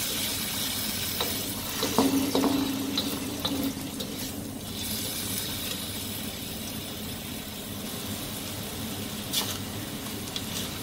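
Potatoes in an oyster-sauce glaze bubbling and sizzling gently in a wok over low heat, with a spatula stirring and now and then clicking against the pan.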